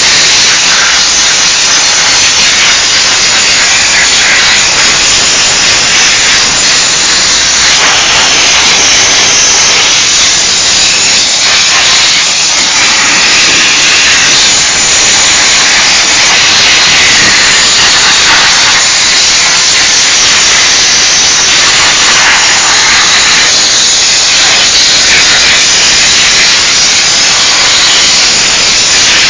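Diesel steam cleaner's wand jetting steam: a loud, steady hiss that shifts slightly in tone now and then.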